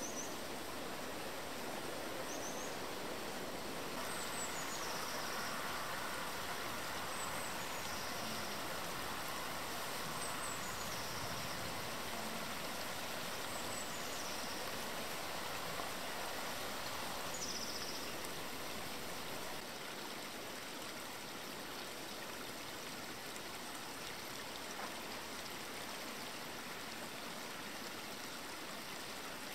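Steady rushing of running water, like a stream, with a small bird giving a short high call that falls in pitch about every three seconds for the first two-thirds.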